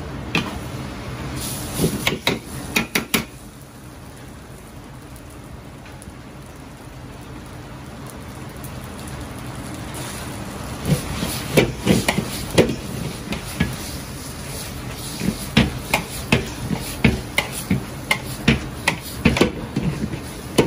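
Metal ladle clanking and scraping against a wok as a large batch of spaghetti is stir-fried, over a steady sizzle and the rush of the wok burner. A cluster of knocks comes about two seconds in, then a stretch of mostly steady frying, then frequent clanks from about eleven seconds on.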